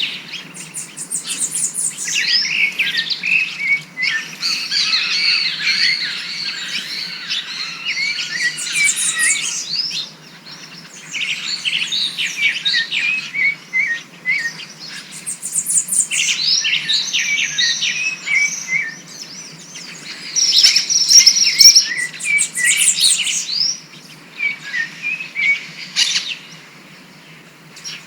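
Songbirds singing: quick high chirps and trills in phrases of several seconds, with short pauses between them.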